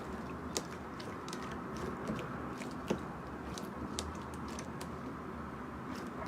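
A blade cutting through dry soap, giving irregular crisp crackles and clicks, the sharpest about half a second and about three seconds in.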